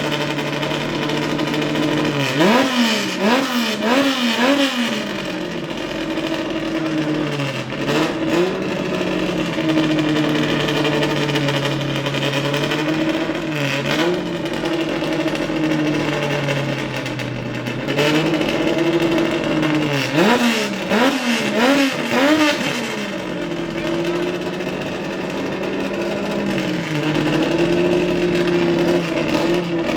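Ford race car engine idling, blipped with several quick throttle revs about two seconds in and again about twenty seconds in. Between the revs it settles back to a steady idle.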